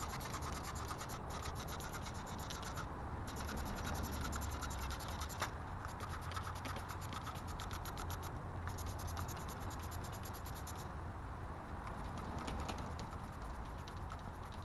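Hand trigger spray bottle being squeezed over and over, misting cleaner onto a car's radiator and AC condenser, with a steady low hum underneath.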